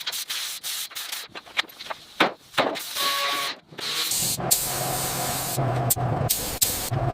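Rapid sanding or rubbing strokes, then about four seconds in a steady hissing run of a machine with a low hum, typical of a power tool at work in a workshop.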